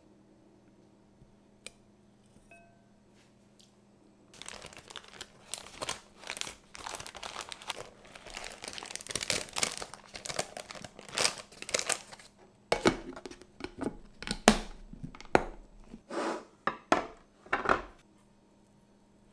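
Parchment paper crinkling as it is folded and pressed down into a glass food container. Then the container's clip-lock lid is set on and pressed shut, with a run of sharp clicks and knocks.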